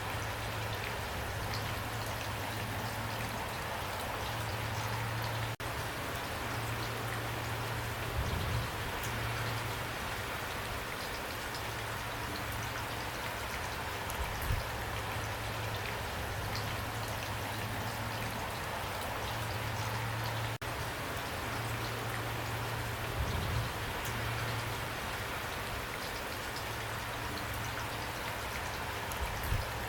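Steady rain falling, a dense even patter of drops with a low rumble underneath that comes and goes, and a few slightly louder splashes. The sound dips out for an instant twice.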